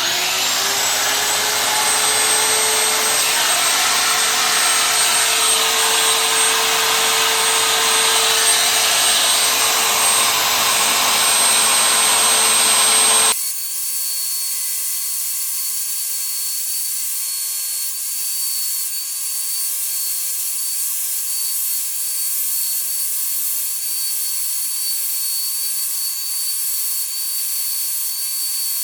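Small high-speed electric power tool, such as a router or rotary tool, spinning up and running steadily as it works wood. About halfway through, the sound changes suddenly to a thinner, steady high-pitched whine.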